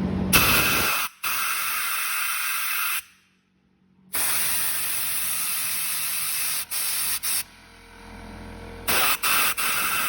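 Pressurised spray hissing in several long bursts, each starting and stopping abruptly.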